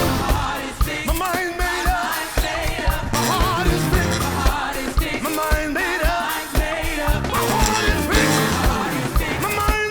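Live worship music: a band with drums keeping a steady beat under a wavering lead voice or melody.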